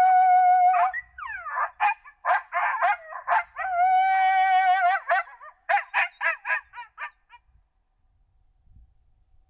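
Recorded coyote group howl played through a FoxPro Fusion electronic predator caller: long steady howls broken by quick runs of yips and barks, stopping about seven seconds in.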